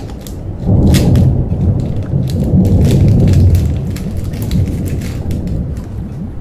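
Thunder rumbling, loudest from about a second in to past the halfway point, over steady crackling like rain, a stormy sound effect.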